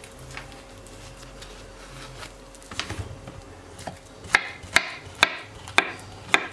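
Kitchen knife slicing a peeled ripe plantain on a wooden cutting board: faint handling at first, then from about four seconds in the blade knocks sharply on the board about twice a second, five strokes in all.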